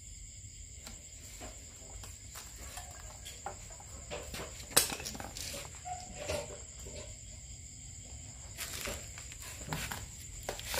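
Faint handling sounds as an air hose is fitted to a motorbike tyre valve: scattered small clicks and taps, with one sharper click about five seconds in. A steady thin high-pitched tone runs underneath.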